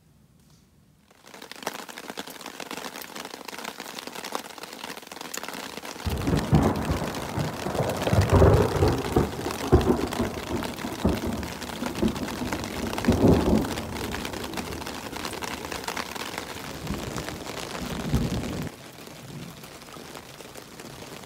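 Steady rain falling, with thunder rolling and rumbling in uneven swells for about twelve seconds through the middle, stopping abruptly near the end.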